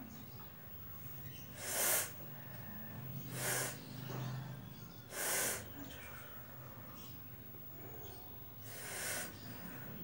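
A person taking four short, forceful breaths, each a brief rush of air, the first three about a second and a half apart and the last after a longer pause.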